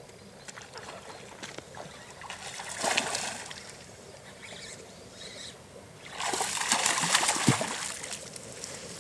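Water splashing at the surface twice: a short splash about three seconds in, then a longer, louder splashing of about two seconds starting around six seconds in.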